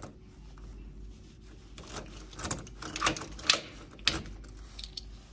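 A key working the lock of a metal doorknob, then the knob being turned: a run of separate metallic clicks and rattles, the sharpest about three and a half seconds in.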